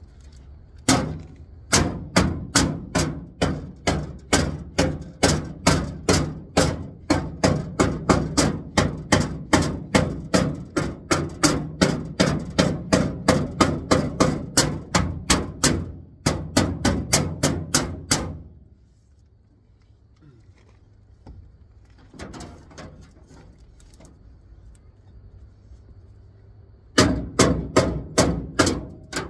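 Hammer striking metal in a steady run of sharp, ringing blows, about three a second, stopping about 18 seconds in; after a quieter stretch, a fresh run of blows starts near the end.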